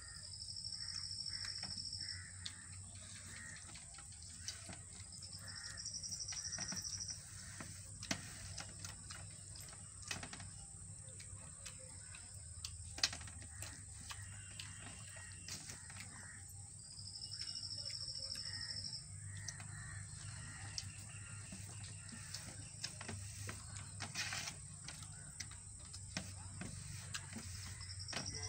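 Eating by hand from a steel plate: small clicks and smacks as rice and mole crab thokku are mixed and eaten. Behind it, a high animal call of about two seconds comes back several times, over a steady high hiss.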